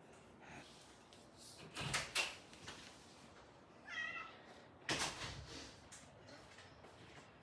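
A house cat gives one short meow about midway, with a few sharp knocks before and after it.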